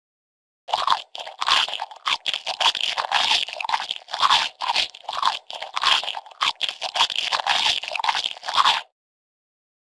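Crunching sound effect: an irregular run of crisp crunches, about two strong ones a second with smaller ones between, lasting about eight seconds and starting and stopping abruptly.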